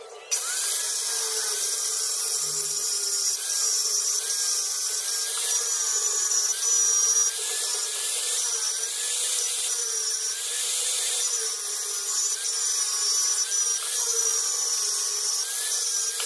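A power tool's motor running under load with a harsh rasping. Its whine wavers up and down in pitch as the load changes.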